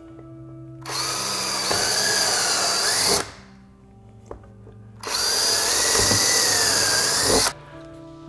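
Power drill boring pilot holes, run twice for about two and a half seconds each, its motor whine dipping and rising in pitch as the bit bites.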